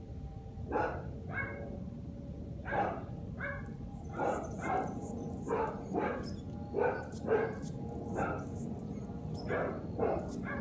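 Dogs barking over and over, roughly one to two barks a second with short gaps, set off by a hot air balloon flying low overhead. A low steady hum runs underneath.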